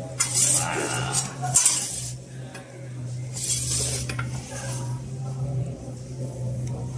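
Metal pizza peel scraping and clattering on the stone floor of a wood-fired oven as the pizza is turned and lifted: several scrapes in the first second and a half and again about three and a half seconds in. A steady low hum runs underneath.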